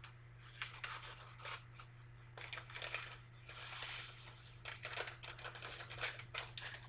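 Paper packet of dry onion soup mix being torn open and emptied into a pan: faint papery rustling and crinkling with small ticks, and a soft hiss about four seconds in as the dry mix is shaken out.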